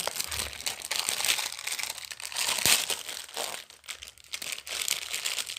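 Packaging crinkling and rustling in uneven bursts as it is handled and opened.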